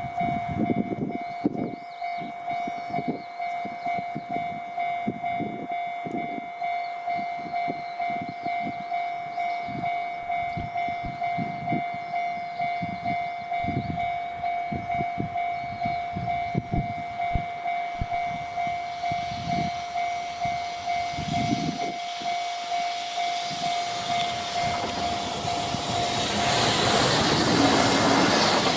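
Japanese level crossing alarm ringing, a steady pitched ding repeating a few times a second. In the last ten seconds the noise of an approaching freight train rises and drowns the alarm out near the end.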